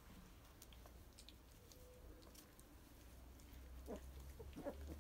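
Three-week-old Dutch Shepherd puppies playing, faint: light ticks of small paws and claws on the floor, with two short puppy grunts near the end.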